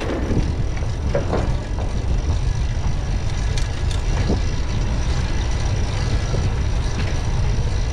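Steady low wind rumble on the microphone, with tyre noise from a fixed-gear bicycle rolling along a smooth cycle path.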